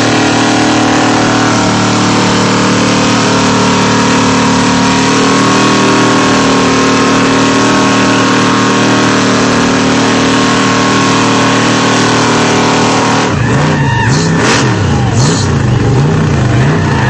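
1984 Chevy K1500's engine held at high revs at a steady pitch. About four seconds before the end the revs surge up and down about twice a second, with a few knocks.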